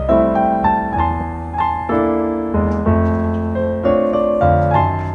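Background music led by a piano-like keyboard, with chords changing every second or so over a steady bass line.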